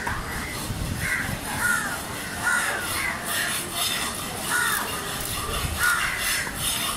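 Crows cawing over and over, one harsh call every half second to a second.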